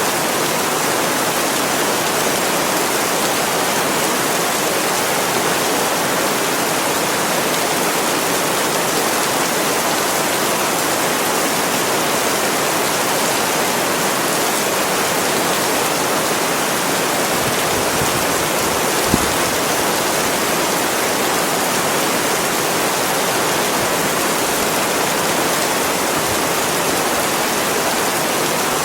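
Heavy, steady rain: a dense, even hiss with no let-up. A single sharp tick stands out about two-thirds of the way through.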